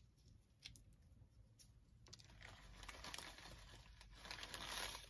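A clear plastic bag of dried flower petals crinkling as it is handled in gloved hands. There are a few faint clicks at first, then steady crinkling from about two seconds in, loudest near the end.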